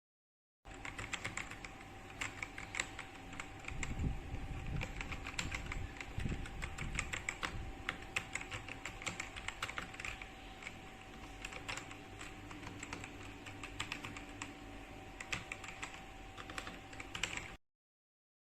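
Typing on an Ajazz AK992 gasket-mounted mechanical keyboard with red linear switches: a fast, irregular run of key clacks, with a faint steady whine beneath.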